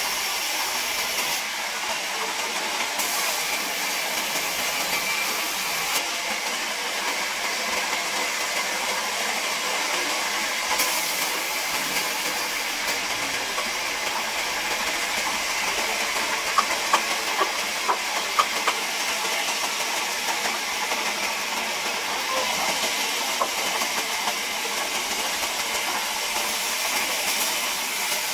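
Large sawmill band saw running and cutting lengthwise through a wooden plank, a steady hiss of the blade in the wood. A few sharp knocks come about two-thirds of the way through.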